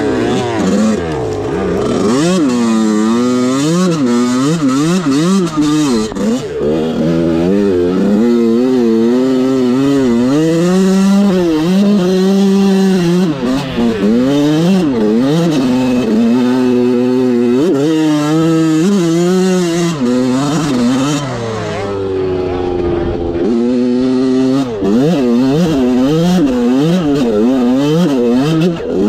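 Dirt bike engine revving up and down continuously as it is ridden hard through sand, the pitch climbing and dropping with each burst of throttle. It eases off in one longer fall a little after two-thirds of the way, then picks up again.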